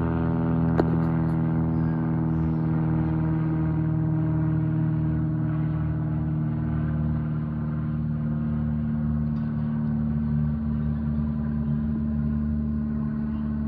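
Cessna A185F Skywagon floatplane's six-cylinder Continental engine and propeller droning steadily overhead, the pitch sinking slightly over the first few seconds as the plane passes. A brief click about a second in.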